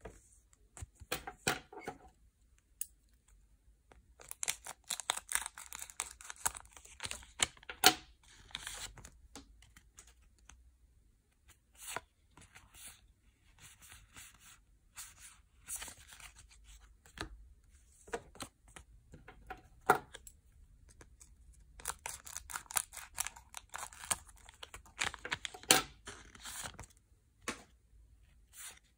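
Foil Yu-Gi-Oh booster packs being crinkled and torn open and the cards handled. The crackling and tearing come in two long stretches, each about five seconds, with separate sharp clicks and rustles between them.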